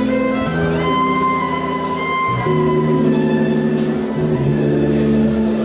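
Live salon-music band playing: a violin carries a melody of long held notes over keyboard and drum kit.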